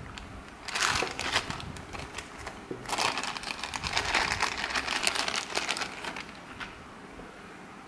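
Thin clear plastic bag crinkling and rustling in the hands as a TV remote control is pulled out of it, in two spells, dying away about six seconds in.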